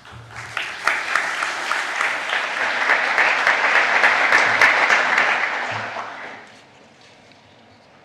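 Audience applauding in a large hall, building over the first seconds, dying away about six and a half seconds in.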